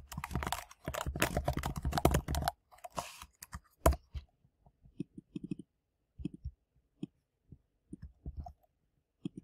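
Typing on a computer keyboard: a quick run of keystrokes for about two and a half seconds, then scattered single key presses and clicks.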